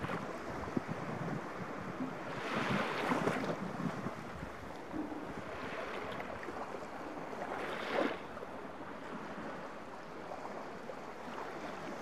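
Small waves of a calm Baltic Sea lapping and washing up a sandy shore. The wash swells three times: most strongly about three seconds in, again around six seconds, and just before eight seconds.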